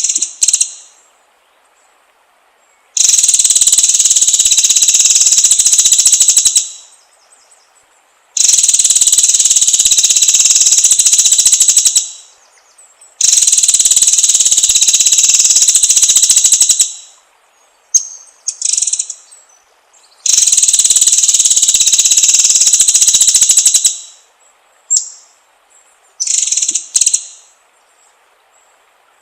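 White-rumped shama singing in four loud bouts of dense, rapid high-pitched song, each about three and a half seconds long and cutting off abruptly, with short calls in the gaps between.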